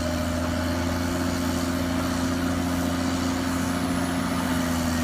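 Road roller engine idling steadily, an even, unchanging running sound.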